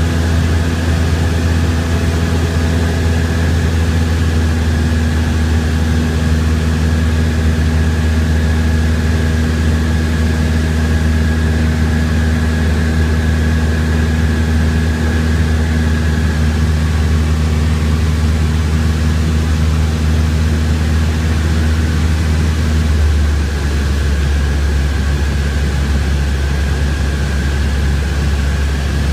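Steady engine drone inside a light aircraft's cabin in flight. About 23 seconds in, the sound changes and its higher hum drops away.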